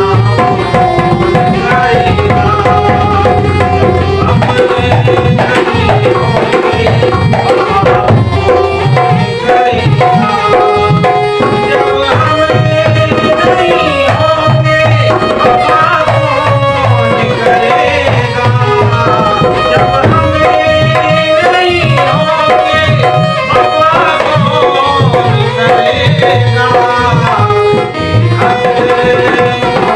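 Instrumental passage of a ghazal: tabla playing a steady rhythm under a sustained melody line.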